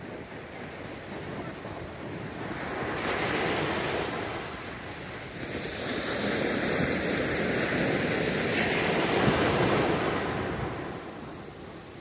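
Gentle ocean surf breaking and washing up a sandy beach. The hiss swells a few seconds in, builds again to its loudest later on, then fades near the end as the wash recedes.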